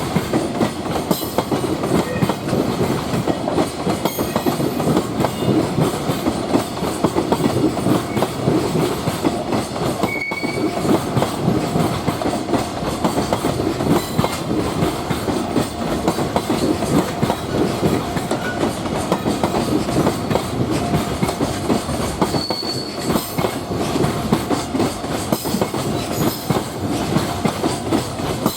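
Freight train rolling past close by, a steady heavy rumble and rattle of wagons with rapid clicking over the rail joints. Twice a brief thin wheel squeal sounds, once near the middle and once near the end.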